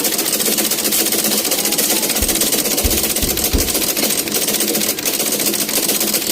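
Antique Singer treadle sewing machine running under pedal power, its needle and mechanism clattering in a rapid, steady rhythm. A few low thumps come between about two and three and a half seconds in.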